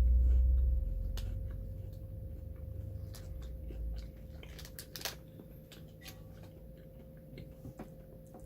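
Someone biting and chewing a banana-flavoured Kit Kat, the crisp wafer crunching in irregular sharp crackles, with a low rumble in the first second and a faint steady hum underneath.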